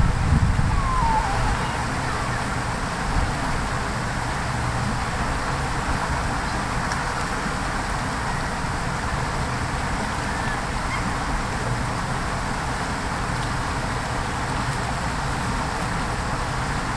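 Shallow creek water running steadily over gravel, with a stronger low rumble in the first second or so.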